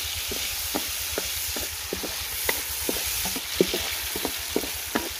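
Peeled almonds and raisins sizzling in ghee in a metal karahi while a wooden spatula stirs them: a steady hiss with many short, irregular clicks.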